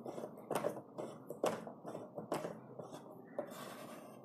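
Small sharp plastic clicks and knocks as the purifier's white plastic faucet tap is gripped and twisted in its collar on the top cover, about half a dozen spread irregularly, the loudest about one and a half seconds in.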